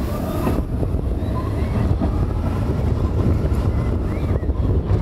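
Expedition Everest roller coaster train rolling along its steel track: a steady low rumble, with wind buffeting the microphone.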